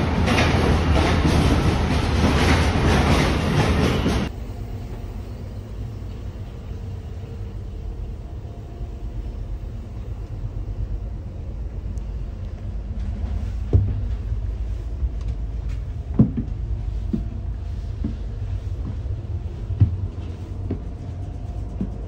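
Loud, steady rumble and hiss of a standing Amtrak Superliner train at a station platform. It cuts off abruptly about four seconds in to a quieter low hum inside the sleeping car, broken by a few separate knocks and bumps.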